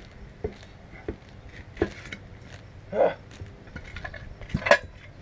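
Metal clanks and clinks from a homemade manual tire changer as its bead-breaker lever is worked down against a big truck tire, at irregular intervals, the loudest near the end.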